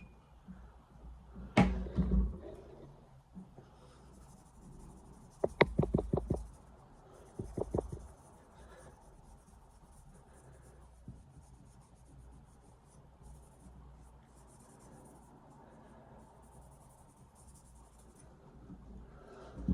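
Hand scrubbing on a small carbon-steel axe head, rubbing off surface rust in short strokes. A knock comes about two seconds in, and a quick clatter of clicks follows a few seconds later.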